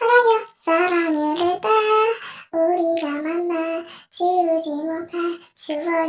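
A child singing alone in short, held phrases, with brief breaths between them.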